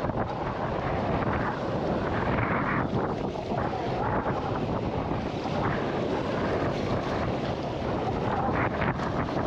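Wind blowing across the microphone aboard an open fishing boat, a steady rushing noise.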